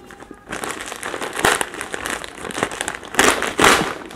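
Plastic courier mailer bag crinkling as it is handled and worked open, in irregular bursts that grow louder near the end.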